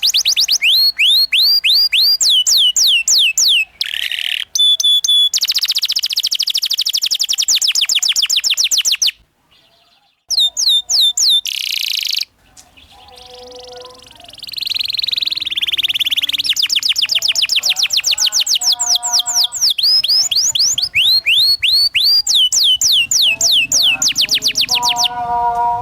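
Domestic canary singing in long rolling trills: fast runs of repeated, sharply falling whistled notes, with a pause of about a second near the middle.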